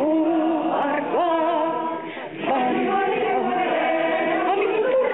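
Choir singing, holding long notes that move in steps, with a short break for breath about two seconds in.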